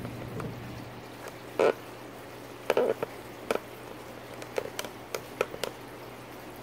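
A steady low hum with a scattered run of short, sharp knocks and clicks. There is one knock a little after a second and a half in, a quick cluster near three seconds, and several more between four and a half and six seconds.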